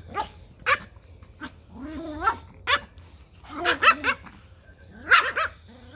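Small Pomeranian dogs barking and yipping in short, high-pitched clusters, about a dozen barks overlapping in bursts every second or so.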